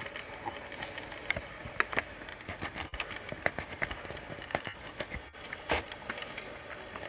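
Macaque biting and chewing a crunchy green vegetable: irregular sharp crunches and clicks, about two a second, over a steady hiss with a thin high tone.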